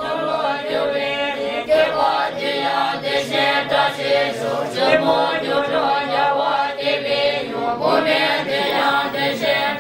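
Background music of several voices singing together in a chant-like style, sustained notes shifting in pitch every second or so.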